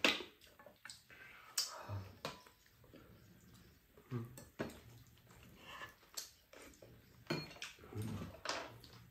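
Metal spoons clinking and scraping against a frying pan and bowls in irregular short knocks, with eating mouth sounds in between.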